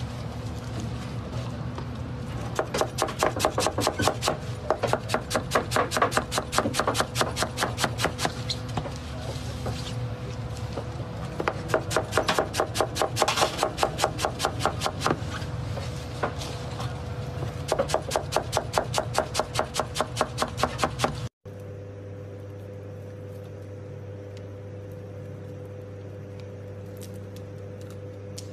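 Rapid repeated cutting strokes against wood, about five a second, in three runs of several seconds each over a steady hum. About 21 seconds in, the sound cuts abruptly to a steady hum with an occasional faint click.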